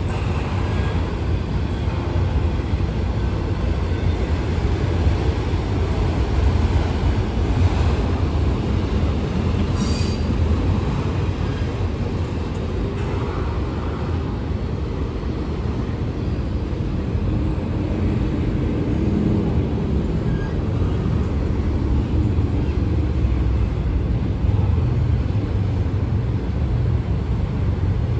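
Double-stack intermodal freight train rolling past, a steady low rumble of steel wheels on rail.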